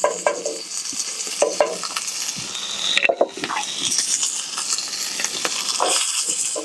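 Chicken pieces sizzling in hot olive oil in a skillet over an open fire, with short knocks and scrapes of a utensil turning them in the pan.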